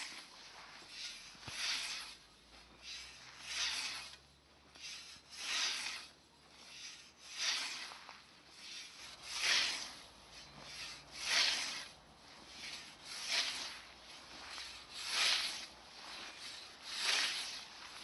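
Hand scythe with a 90 cm blade mowing tall grass: a swish of the blade cutting through the grass about every two seconds, with softer rustles between the strokes.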